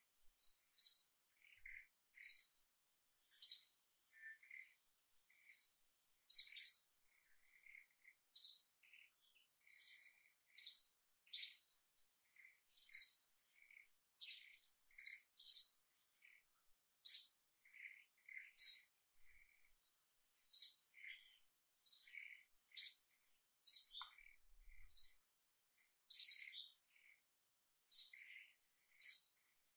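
A bird chirping over and over: short, sharp high notes, often in quick pairs, every second or two, with fainter lower notes in between. A faint, steady, very high whine runs underneath.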